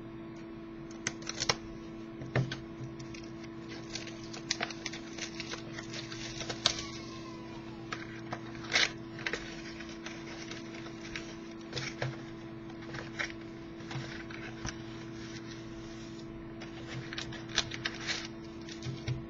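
Sealed trading card box and packs being handled and opened: scattered short rustles, crinkles and clicks of cardboard, wrapper and cards, over a steady low hum.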